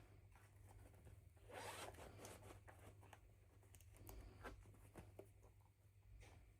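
Faint handling of toy packaging: a short zip-like rip about a second and a half in, then light clicks and taps.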